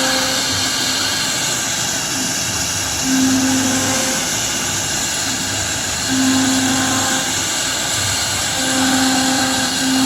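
CNC router cutting MDF: steady spindle noise with a strong high hiss, and a lower hum that swells for about a second three times, near the middle and toward the end.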